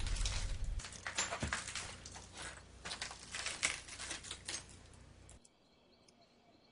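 A run of irregular clicks and crackles over a low hum, thinning out and stopping about five seconds in.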